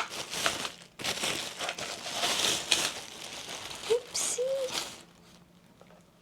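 Packaging crinkling and rustling as a selfie stick is unwrapped, with a short pause about a second in. It stops about five seconds in.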